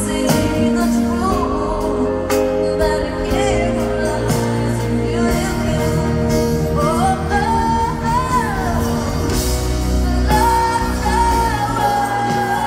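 A female lead vocalist sings a slow pop ballad live, backed by keyboard, bass guitar and backing singers, with a melodic run that climbs and falls back about seven seconds in. It is heard from the audience in a large hall.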